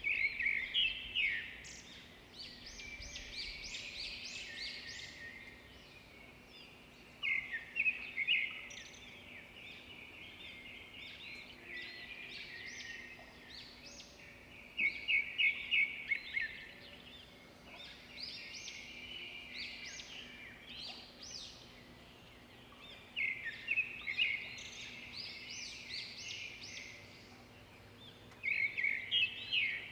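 Birdsong: a loud, fast run of notes repeated about every seven to eight seconds, with softer chirping between the phrases.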